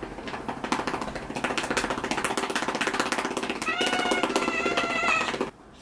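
A hand patting a cat's rump in a fast run of soft slaps, several a second. Near four seconds in, the cat gives one long meow of excitement over the patting. Both stop suddenly about half a second before the end.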